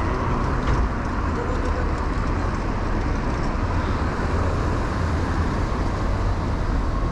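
Steady city street traffic: cars and buses passing, heard while riding a bicycle, with a low wind rumble on the microphone.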